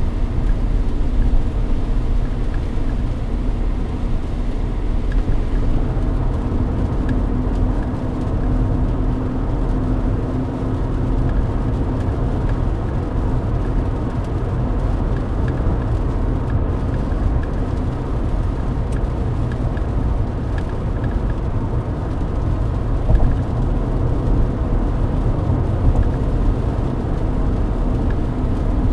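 Mercedes-Benz W124 E-Class cruising on a wet highway: steady engine drone and tyre rumble, with a faint hum that comes and goes.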